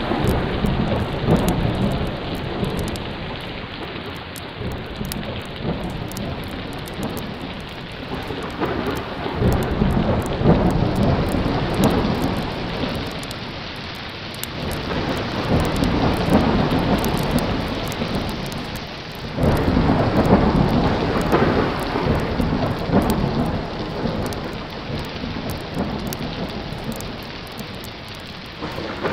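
Heavy rain pouring steadily, with rolling thunder that swells and fades several times. One rumble breaks in suddenly about two-thirds of the way through.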